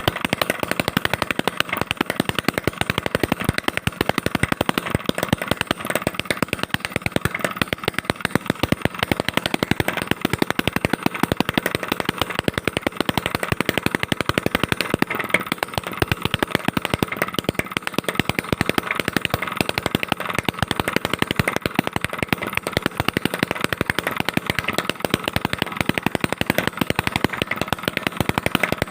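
Homemade two-stroke engine converted from a refrigerator compressor, running steadily with a rapid train of sharp firing pops.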